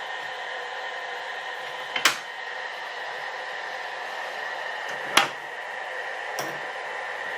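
A motor running with a steady whine. It is broken by two sharp knocks about two and five seconds in and a fainter knock about six and a half seconds in.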